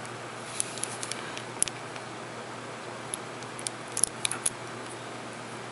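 Scattered light clicks and taps of long fingernails and plastic swatch sticks being handled against a nail polish bottle, with a cluster of clicks about four seconds in, over a steady hiss.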